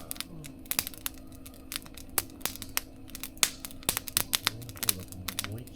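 Wood fire crackling in a mesh fire-pit stove: irregular sharp pops and snaps, several a second, over a faint steady hum.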